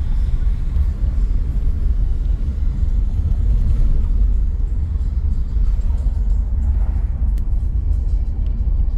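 Car driving along a road: a steady, loud low rumble of engine and tyres.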